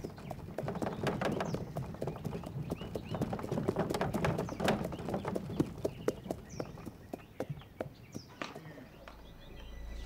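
Horse's hooves clopping on stone paving as a horse-drawn carriage with wooden spoked wheels comes up close, loudest in the middle and thinning out near the end. Birds chirp now and then.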